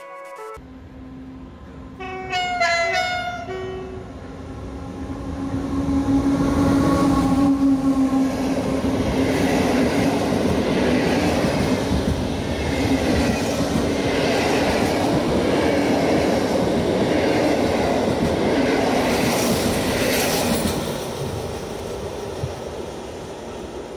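PKP Intercity express train hauled by an EP09 electric locomotive: a short horn call about two seconds in, then the train passing at speed with a long rumble and clatter of the coaches, dying away near the end as it recedes.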